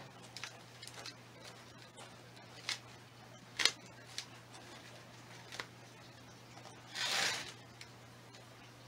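Hands working among dog tail cactus stems and pressing potting soil into the pot: scattered soft clicks and rustles, with a longer rustle about seven seconds in. A low steady hum runs underneath.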